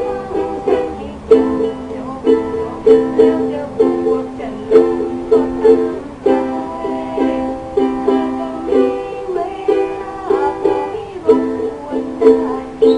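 Two handmade Kikkok ukuleles strummed together, playing a song's chords in a steady rhythm.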